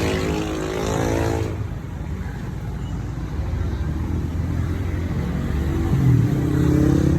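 Motor vehicle running, with a steady low rumble of engine and road noise. Its pitched engine hum fades about a second and a half in, and a rising engine note comes back near the end.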